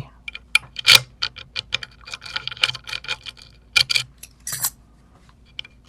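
Small metal lock parts and key being handled: a quick run of light, irregular metallic clicks and taps, pausing briefly near the end.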